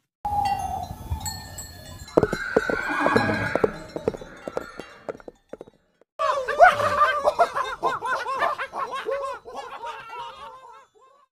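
A zebra calling with a run of harsh, barking brays, then, after a short pause, a horse's long quavering whinny.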